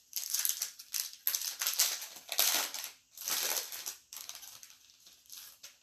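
Foil wrapper of a 2020 Panini Select baseball card pack crinkling as it is torn open and crumpled by hand, loud for the first four seconds, then a few smaller crackles.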